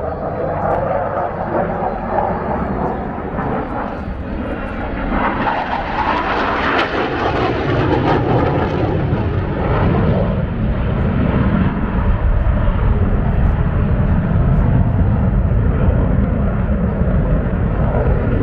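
Jet noise from a Saab J35 Draken fighter's single turbojet engine, a continuous rushing noise that grows louder, with a deep rumble building from about halfway through as the jet passes.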